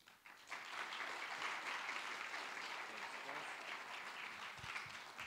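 Audience applauding, starting about half a second in and easing off near the end.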